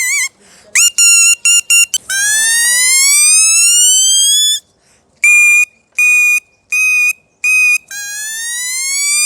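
Handmade mouth whistle (toy seeti) blown and shaped with the tongue, giving clear shrill piping notes. A few short notes come first, then a long slow rising glide from about two seconds in, then four short even notes, and another rising glide near the end.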